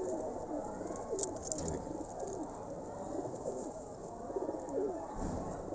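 Several domestic pigeons cooing, their coos overlapping continuously.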